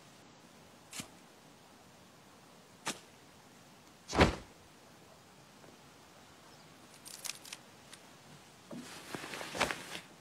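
Sparse sound effects: a few sharp taps, a louder thump about four seconds in, then a rustling swish near the end as a woven bamboo hat is lifted off.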